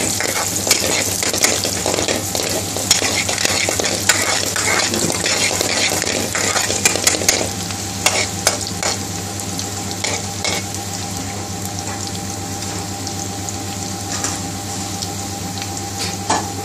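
Chopped garlic sizzling in hot vegetable oil in a metal pan, with a metal spoon scraping and clicking against the pan as it is stirred for about the first half; then the sizzle goes on steadily with only the odd click.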